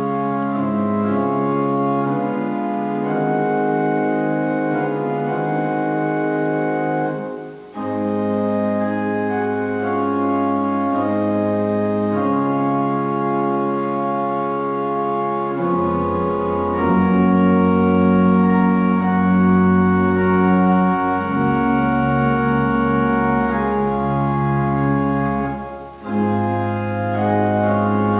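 Organ playing slow, sustained chords, with two short breaks between phrases, about a quarter of the way in and near the end.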